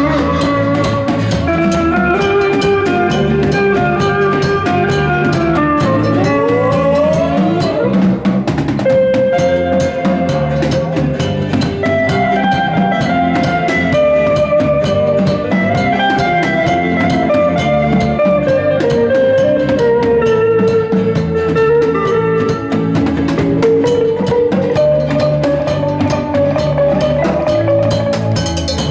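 Live band playing instrumental rock: an electric guitar carries the melody over bass guitar and a drum kit, with a long bending glide in the guitar line about seven seconds in.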